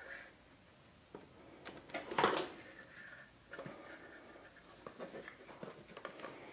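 Faint handling noises of hands joining and tucking motor wires into a cardboard quadcopter frame: scattered rustles and light clicks, with one louder rustle about two seconds in.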